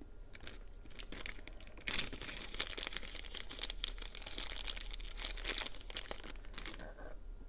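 Plastic jelly-cup packaging being crinkled and torn open: a dense run of crackling that starts about two seconds in and dies down near the end.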